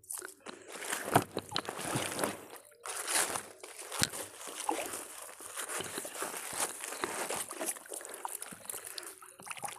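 Water sloshing and trickling off a wet gill net as it is handled and fed back over the side of a small boat, with a few sharp clicks along the way.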